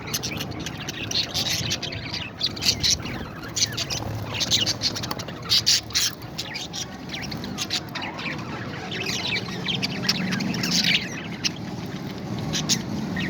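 Parrots squawking and chirping in many short, quick calls.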